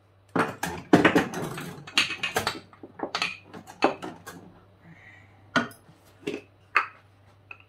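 Spice jars being handled: plastic lids clicking open and shut and jars knocking down on a stone countertop. It makes a run of sharp clicks and knocks, busiest in the first two and a half seconds, then a few separate knocks.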